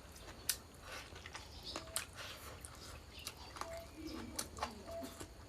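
A person chewing food close to the microphone, with several sharp crunches, while short faint chirps sound in the background.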